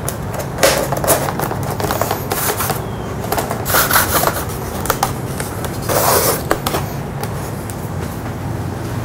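Irregular scraping, rustling and sharp clicks of hands handling parts at a workbench, over a steady low hum.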